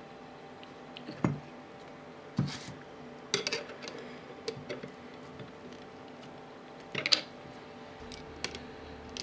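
Light metallic clinks and taps, a second or two apart: an open-end spanner working a small nut on a steel rod, and small steel parts knocking together as they are handled. The sharpest clink comes about two-thirds of the way through.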